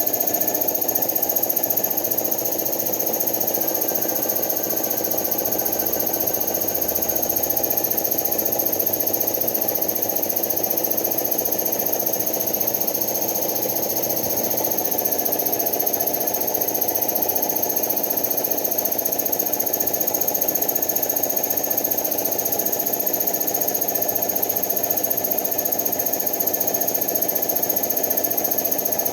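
Air compressor running steadily with a fast knocking beat and a steady high whine above it.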